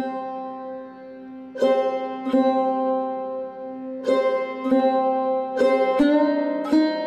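Instrumental background music of plucked strings, notes struck every second or so and left ringing over a steady held tone.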